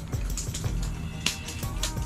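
Background music with a steady low bass line and a regular ticking beat.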